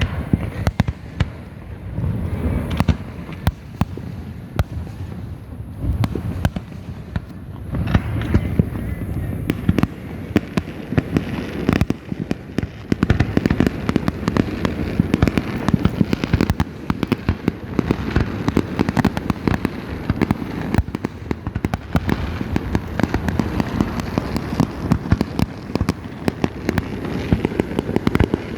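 Fireworks going off: repeated sharp bangs and crackling, becoming a dense, almost unbroken crackle from about halfway in.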